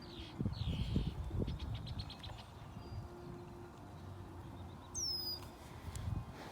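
Seagulls calling: two short curving cries near the start, then a quick run of clipped notes, and a high thin call about five seconds in. Low rumbling noise runs underneath and is loudest in the first second and a half.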